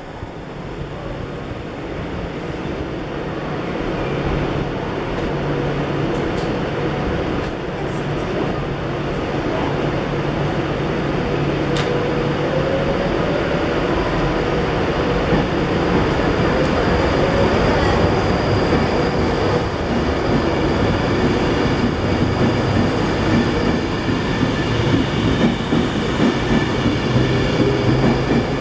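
Class 390 Pendolino electric train approaching and running in alongside the platform. Its noise builds steadily as it nears, with a whine that rises and falls.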